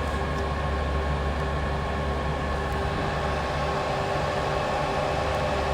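Lipo laser slimming machine running with a steady hum from its cooling fans, a low drone with a few fixed whining tones above it.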